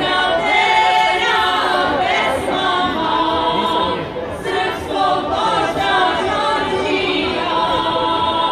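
A women's folk vocal group singing a cappella in several voices, with long held notes and a short pause for breath about four seconds in.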